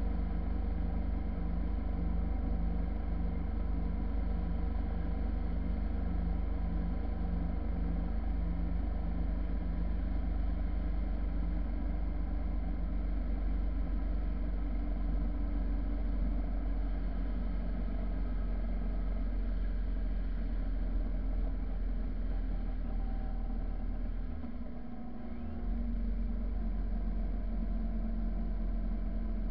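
Motorcycle engine running at a steady cruising speed, with road noise and a strong low rumble; about 25 seconds in, the sound drops for a second or so and then comes back.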